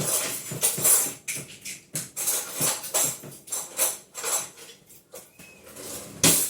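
Measuring cups and spoons clattering and clinking together as they are rummaged through and pulled out, in quick irregular knocks, with one louder knock near the end.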